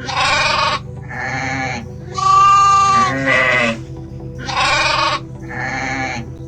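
A run of about six bleats, each under a second long, over steady background music.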